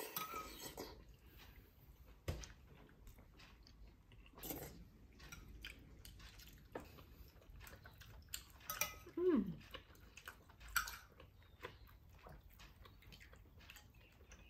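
Faint scattered clicks and knocks of dishes and utensils being handled, with one short falling squeak about nine seconds in.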